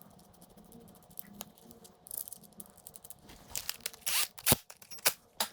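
Faint handling noise, then a quick run of sharp clicks and knocks in the last two seconds or so: hand tools and metal parts worked while unbolting the clutch perch from a dirt bike's handlebar.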